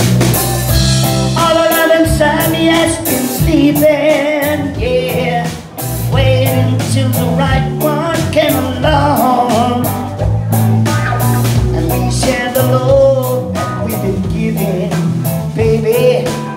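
Live band playing: a male lead singer singing into a microphone over two electric guitars, an electric bass and a drum kit keeping a steady beat.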